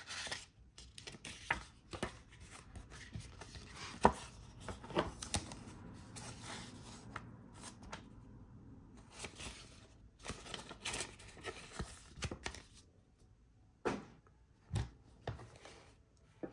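Packaging being handled and opened by hand: stretches of rustling and scraping with several sharp knocks and clicks, the loudest about four seconds in.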